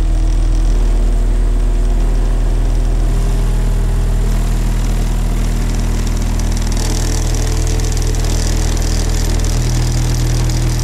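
Steady, loud, very low bass test tone from subwoofers driven by a CT Sounds 1400.1d amplifier being pushed toward clipping (about 1% distortion) for an output measurement, with overtones that shift slightly a few times.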